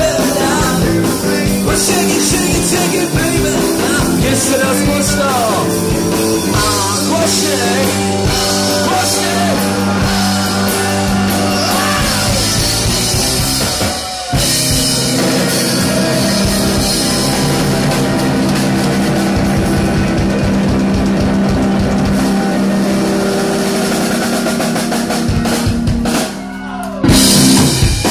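Live rock band playing loud: drum kit, electric guitars and singing. The music dips briefly about halfway through and drops out shortly before the end, followed by a short loud burst.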